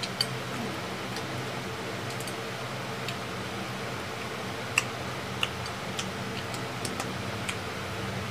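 Sparse small clicks and crackles of eating close to the microphone, a balut duck egg's shell being peeled and food chewed, the sharpest about five seconds in, over a steady low hum.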